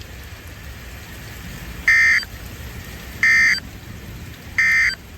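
Three short, identical buzzy data bursts about a second apart, the Emergency Alert System (SAME) end-of-message code on a NOAA Weather Radio broadcast, marking the end of the warning message. A steady radio hiss lies underneath.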